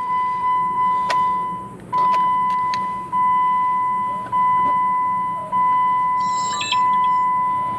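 2016 Jeep Wrangler JK's dashboard warning chime: a single steady tone repeating about once every 1.2 seconds, each chime fading away, a sign that a door is open. A few sharp clicks sound about one to three seconds in.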